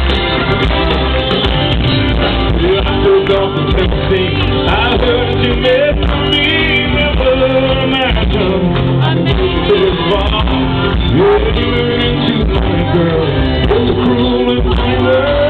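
Live country band performing loudly through a concert PA, with a male lead vocal singing over guitars, bass and drums, heard from within the audience.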